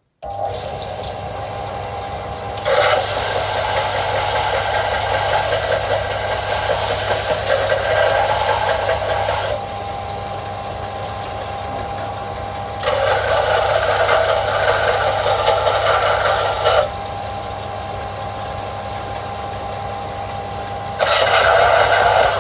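Belt sander with an 80-grit belt starting up and running steadily with a hum and a thin whine. Three long spells of loud, harsh grinding, each several seconds, come as a rusty steel blade is pressed onto the belt to polish it.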